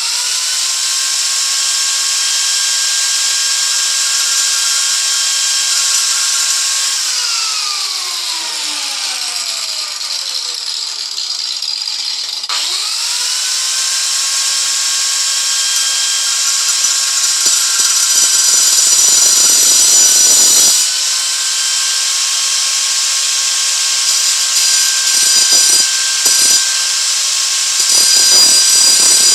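A small high-speed power tool cutting through a light-duty bolt, running with a high steady whine. About a quarter of the way in, the whine slides steadily down as the tool slows; it then starts up again and winds back to speed, and rougher cutting noise comes in twice in the second half as the cutter bites into the bolt.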